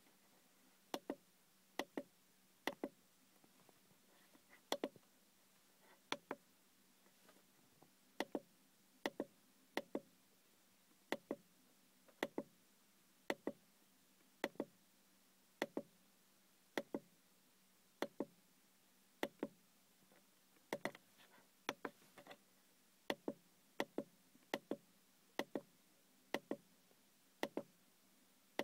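Clicks of a Skoda Octavia's instrument-cluster menu switch being pressed over and over to scroll through the menu, mostly in quick pairs about once a second.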